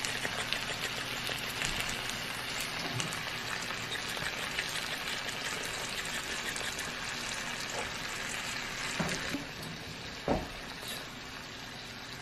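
Eggs frying in a pan with a steady crackling sizzle that eases a little in the second half. A brief low knock sounds about ten seconds in.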